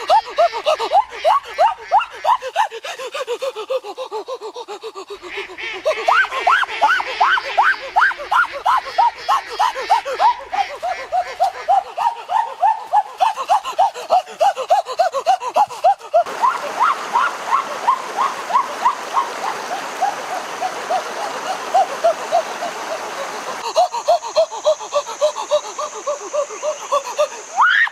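A rapid, rhythmic laugh-like sound effect: short pitched syllables at about five a second, shifting pitch at a few edits, with a steady hiss added for several seconds past the middle.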